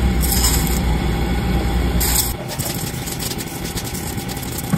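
Raw rice poured from a bowl into a non-stick pan with a rustling hiss, then stirred and scraped with a silicone spatula in many small clicks, over a steady low hum that stops about halfway through.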